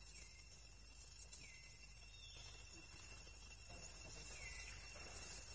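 Faint jungle ambience of insects droning steadily on several high pitches, with a few short chirps now and then.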